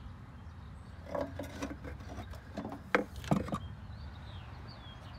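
A few light metallic knocks and scrapes as the rusty steel air cleaner is handled and set back over the Quadrajet four-barrel carburetor, about a second in and again around three seconds in. Faint bird chirps come near the end.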